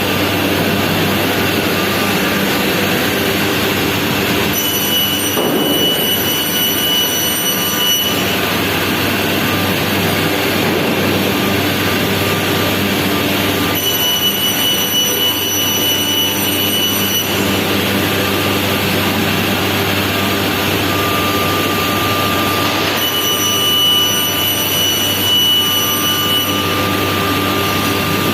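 Biesse Rover K CNC woodworking machine running, a loud steady roar. A high-pitched whine comes in and fades out three times, for a few seconds each.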